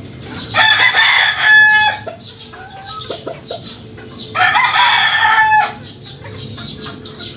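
Gamecocks crowing twice, each crow lasting about a second and a half, with fainter clucking in between.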